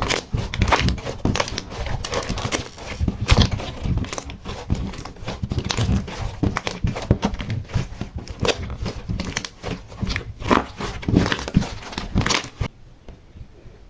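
Decorated slime being mixed and squished: a dense, irregular run of sticky crackles, pops and crinkles that stops abruptly near the end.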